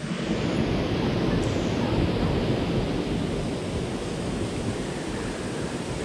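Steady rushing of moving water, an even wash of noise that stays loud throughout.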